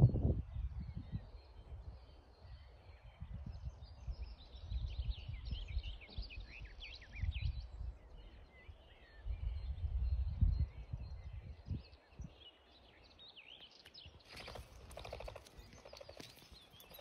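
Songbirds chirping, busiest from about four to eight seconds in, over an irregular low rumble of wind on the microphone. A short burst of rustling near the end.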